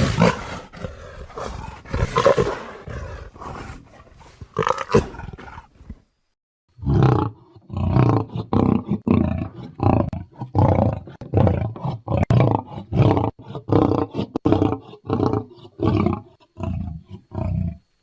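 Big cat roaring sound effect, presented as the extinct Panthera shawi: a long, rasping, snarling roar, then after a short pause a long run of short grunting roars, about one every two-thirds of a second, like the grunting end of a lion's roaring bout.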